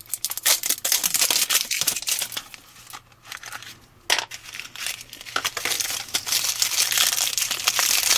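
Crinkling and tearing of toy packaging: the seal of a small blind-box capsule is peeled off, then a squishy figure is pulled out of its crinkly wrapper. There is a short lull about halfway through.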